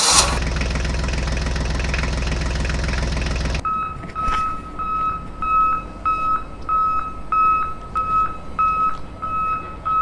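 A tractor engine sound effect running steadily, cutting off abruptly after about three and a half seconds. Then a high, even electronic beeping, about two beeps a second, like a vehicle's reversing alarm, over a faint background hum.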